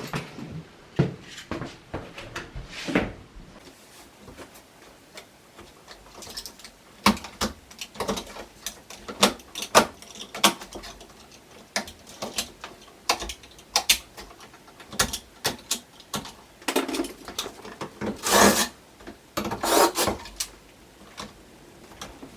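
Hand tools and electrical parts being handled during wiring work: scattered clicks and knocks, with a few short stretches of scraping or rubbing.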